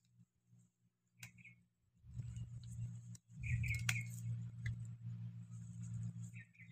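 Rustling and handling of bitter gourd vines and leaves as the fruit is picked by hand, a low rough rumble with a few sharp clicks, the sharpest about four seconds in. Short faint bird chirps come through now and then.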